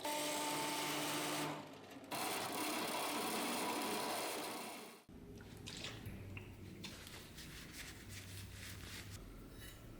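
A small power tool running with a steady whirr, dipping briefly, then winding down and stopping about halfway through. After it, quieter scattered clicks and handling noises.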